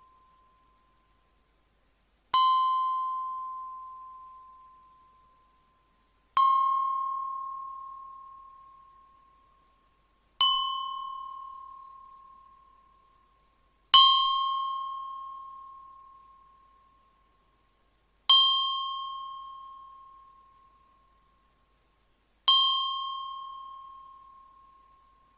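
Ice cream bell struck six times, one clear ding every three to four seconds, the first about two seconds in. Each strike rings on one bright pitch with higher overtones and fades away slowly before the next.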